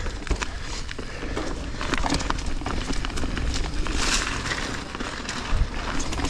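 Mountain bike rolling fast down a dirt trail covered in dry leaves: tyre noise over dirt and leaves, with many small clicks and rattles from the bike and a low wind rumble on the helmet microphone. A louder rush of noise comes about four seconds in.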